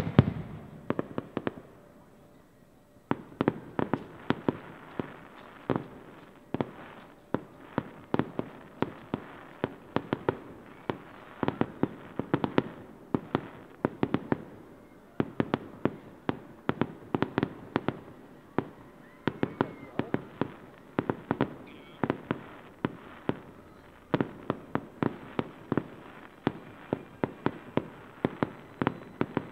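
Aerial fireworks display: shells bursting in a rapid, dense barrage of sharp bangs. There is one big bang at the start and a brief lull about two seconds in, then bursts follow each other several times a second.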